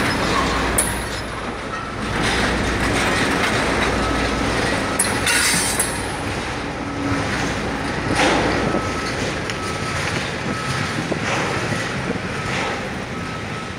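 Railway tank cars rolling slowly along a siding, wheels clattering over the rail joints with a few short, high wheel squeals near the start and about five seconds in. The low rumble fades about halfway through as the cars move away.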